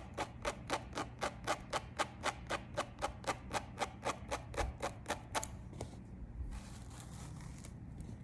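Tweezers clicking about four times a second while plucking hairs from a wig's lace frontal; the clicks stop about five and a half seconds in, and a soft rustle follows.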